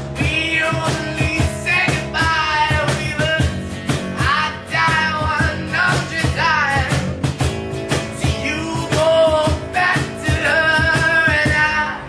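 Background song with a singing voice over guitar and a steady beat.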